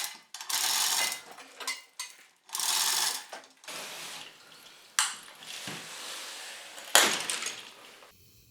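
Ratchet wrench working bolts on an outboard engine's crankcase, ratcheting in bursts about a second long. Two sharp metal clanks follow later.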